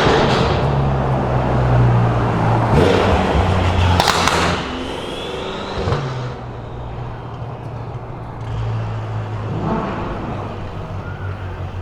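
BMW M5 F10's twin-turbo V8, fitted with catless downpipes and an M Performance exhaust, running loud at a steady engine speed. A sharp crack comes about four seconds in, and about half a second later the engine drops to a quieter, steady low running.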